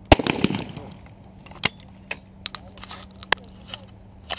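A single shotgun shot at a thrown clay target just after the start, one sharp loud crack with a short tail. A few lighter sharp clicks and knocks follow over the next few seconds.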